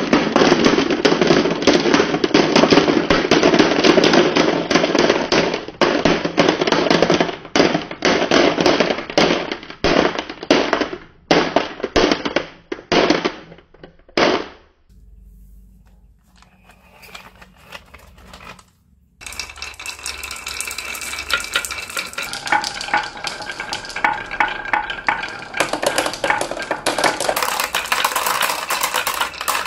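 Glass marbles rolling down a wooden wave-shaped slope and clattering into a plastic basket: a dense rattle that thins to single clicks and stops about 14 seconds in. After a short lull, a line of glass marbles rolls and clicks along a wooden wavy track.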